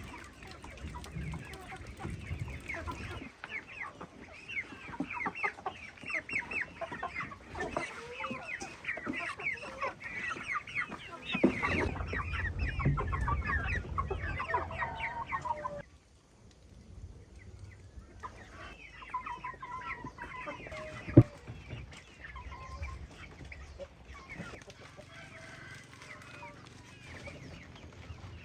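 Domestic chickens clucking, many short calls overlapping, broken by a brief silence past the middle, with one sharp knock a little later.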